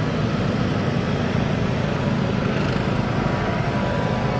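Several riding lawn mowers and a small garden tractor driving past close by, their small engines running steadily together.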